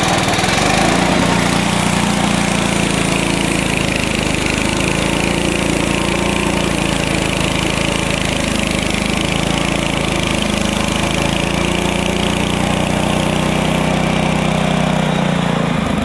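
Frontier OS23 bandsaw sawmill cutting a log: its small engine runs steadily under load, with the band blade and sawdust adding a steady high hiss. The hiss fades near the end as the cut finishes.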